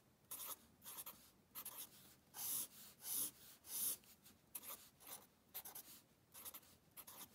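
Sharpie felt-tip marker writing on paper: a run of short, quick strokes as grid lines and letters are drawn, with a few longer strokes about halfway through.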